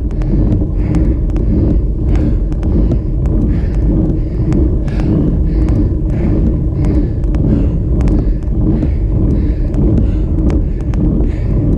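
Steady loud wind and road rumble on a bicycle-mounted camera as the road bike rides up the climb, with frequent light clicks through it.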